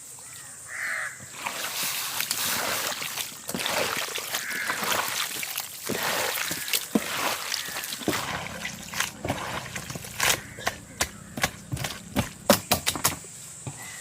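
Hands mixing cut squid with ground turmeric, chilli and ginger-garlic pastes and rock salt: wet squelching and smacking. The sharp sticky smacks come thicker in the second half.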